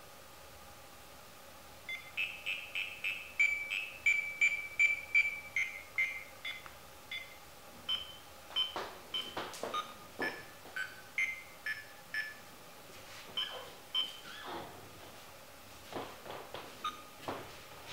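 BugHunter BH-02 Rapid RF bug detector beeping as it picks up a transmitting GPS tracker. A quick run of short beeps, about three or four a second, starts about two seconds in, then sparser beeps that shift up and down in pitch, mixed with a few sharp clicks.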